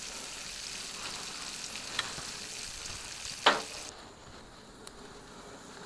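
A seasoned raw T-bone steak sizzling on the hot grates of a gas grill at about 450 degrees, freshly put on to sear, with sharp pops of spitting fat about two seconds in and again about three and a half seconds in, the second the loudest. The sizzle turns much quieter just after the second pop.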